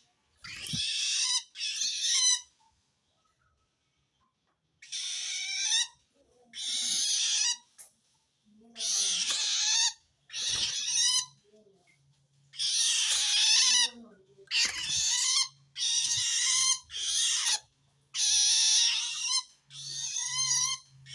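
Long-tailed shrike giving a series of about a dozen harsh, rasping calls, each half a second to a second and a half long, with short pauses between them. The uploader takes this call as a sign that the shrike feels threatened by another shrike.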